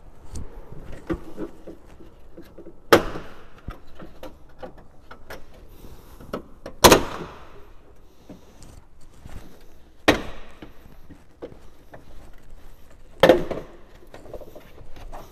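Suzuki Jimny JB74's plastic front grille being pulled off the body, its retaining clips snapping free with four sharp pops about three seconds apart. Light plastic clicks and rattles sound between the pops.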